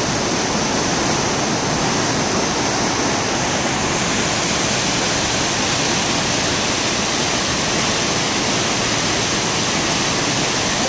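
A waterfall and whitewater rapids rushing, a steady, even noise of falling and churning water that never lets up.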